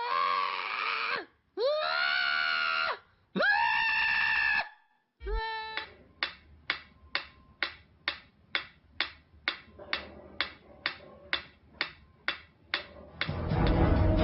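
A cat yowling: three loud, drawn-out cries in the first five seconds. Then a steady run of sharp clicks about twice a second.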